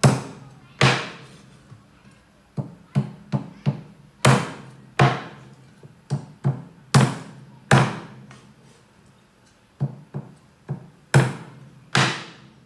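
Meat cleaver chopping raw chicken on a round wooden chopping board: about eighteen sharp chops at an irregular pace, some in quick runs, with a pause of about two seconds past the middle.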